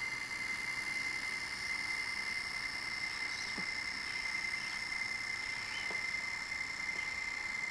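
HO-scale model train running on the layout track: a steady high-pitched whine from the model diesel locomotive's motor drive, with a couple of faint ticks from the wheels on the track.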